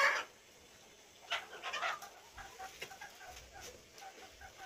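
Live chickens clucking: a couple of short calls, then a run of soft, evenly spaced clucks.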